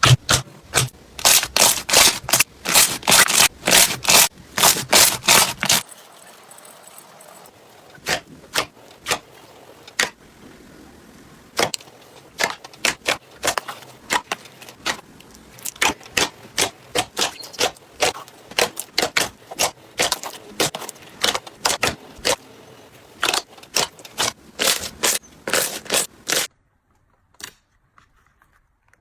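Slime being squeezed and stretched by hand, giving a run of crackling, popping clicks. The pops come thick and loud for the first six seconds, then sparser and spaced out, and stop a few seconds before the end.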